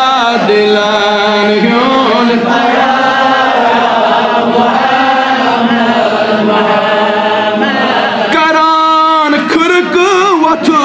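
A man chanting a Kashmiri naat, a devotional song in praise of the Prophet Muhammad, in long drawn-out sung phrases. Near the end he holds a high note that wavers in pitch.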